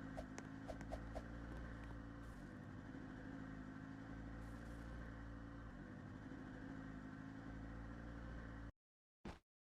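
A boat's engine running steadily at a low drone, with a few light clicks in the first second or so. It cuts off abruptly near the end, and a single brief knock follows.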